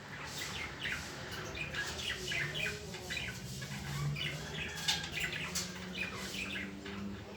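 Birds chirping and squawking, many short calls a second overlapping, over a faint steady low hum.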